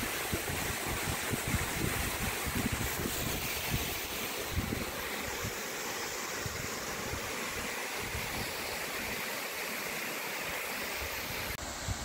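Steady rush of a waterfall plunging down a cliff, with wind buffeting the microphone in low, irregular gusts. The sound changes abruptly near the end.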